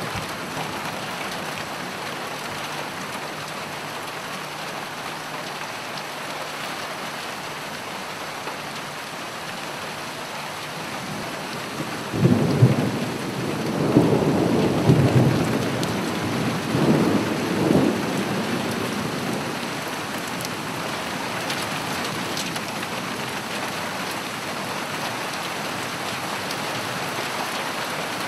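Steady rain hissing throughout, with a roll of thunder rumbling in several swells from about twelve seconds in and dying away by about twenty seconds.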